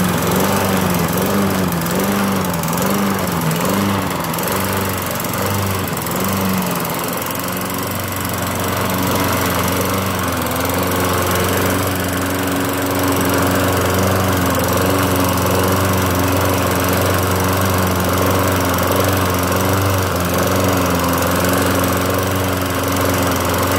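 Walk-behind gas lawn mower's small single-cylinder engine running while the mower is pushed through deep snow. Its pitch wavers up and down for the first several seconds, then holds steadier.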